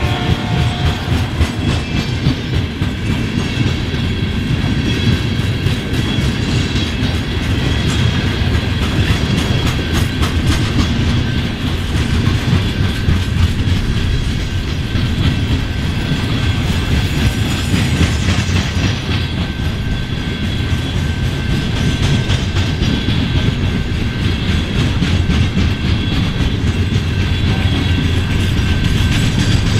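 Loaded iron ore hopper cars of a long freight train rolling past at slow speed: a steady rumble of steel wheels on rail with a continuous run of clicks as the trucks pass over the rail joints.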